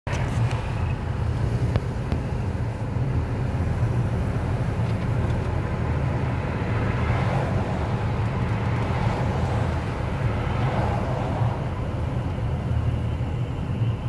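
Steady road noise inside a moving car: a low drone of engine and tyres on the pavement with air rushing past, swelling slightly a few times in the middle.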